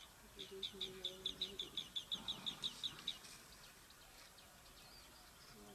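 A bird calling: a rapid run of about fifteen short, high, sharp notes over roughly three seconds.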